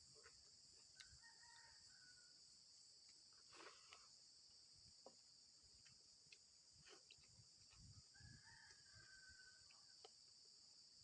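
Rooster crowing faintly in the distance twice, once about a second in and again about eight seconds in, over a steady high insect drone.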